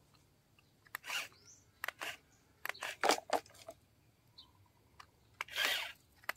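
Plastic toy excavator clicking and scraping as it shifts off a toy truck's trailer onto gravel: irregular sharp clicks and short scrapes, with a longer scrape near the end.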